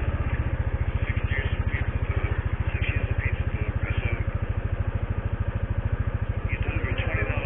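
Motorcycle engine idling close by, a steady rapid pulsing of about a dozen beats a second.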